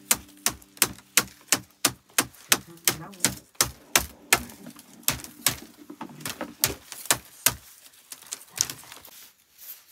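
A rapid, even series of sharp strikes, about three a second, thinning out and growing fainter in the last two seconds.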